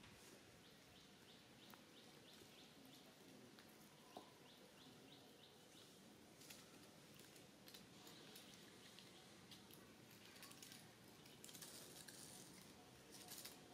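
Near silence with a faint bird chirping, a quick run of short high chirps repeated about three times a second for several seconds, and a few soft scattered clicks.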